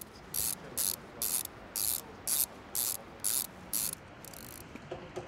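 A cycling shoe being tightened by hand: about ten short, sharp rasping bursts, roughly two a second, that stop about a second before the end.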